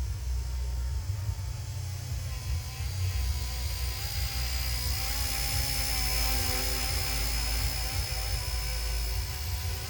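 Small electric RC scale helicopter, an RC Era C032 UH-1 Huey, in flight: a steady high motor whine with wavering rotor tones, growing louder about three seconds in. Wind gusts rumble on the microphone.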